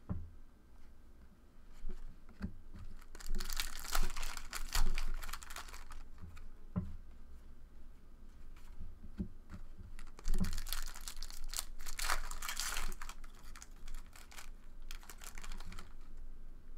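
Trading cards being flipped and slid against one another in the hands, with bursts of papery rustling, two of them longer, and a few soft knocks on the table.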